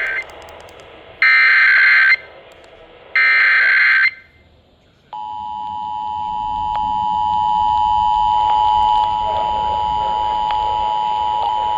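Emergency Alert System test tones: the SAME digital header, a harsh data screech sent in three bursts of about a second each. After a brief pause, the EAS attention signal, two steady tones (853 and 960 Hz) sounded together, starts about five seconds in and holds steady.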